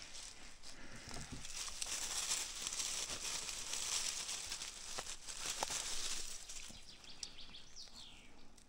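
Rustling and crackling of grass and dry leaf litter as hands reach in and twist a bolete mushroom out of the forest floor, with small snaps and crackles throughout, dying down near the end.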